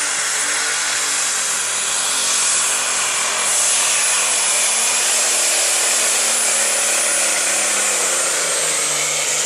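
Minneapolis-Moline open super stock pulling tractor running flat out under load as it pulls the sled, a loud continuous engine noise with a high turbocharger whistle held steady, which starts to drop slightly near the end.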